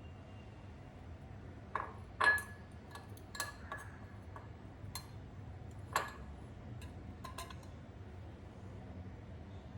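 Several light clinks and taps of kitchenware in the first few seconds, one ringing briefly, over a faint steady low hum.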